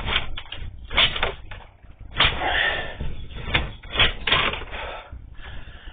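Irregular clicking and knocking from a sewer inspection camera being pushed into a cast iron drain line, its push cable and camera head rattling against the pipe.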